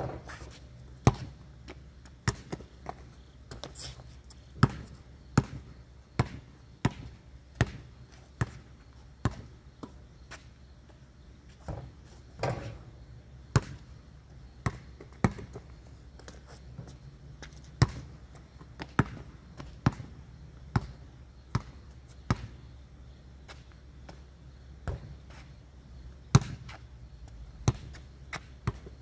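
A regular series of sharp thuds, about one every three-quarters of a second, over a low steady hum.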